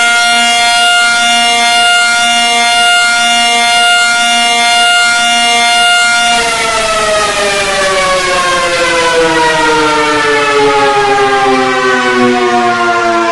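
Civil-defence-style siren sounding at a steady pitch, then winding down with a slow falling pitch from about six seconds in, and cutting off abruptly at the end.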